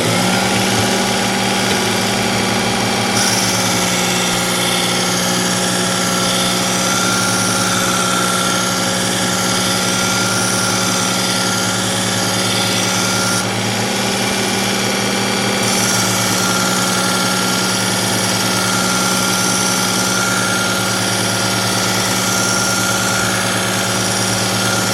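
Electric belt sharpener running steadily while a knife edge is ground against a fine X22 abrasive belt, a steady motor hum under the hiss of steel on the belt. The grinding hiss eases for a couple of seconds about halfway through.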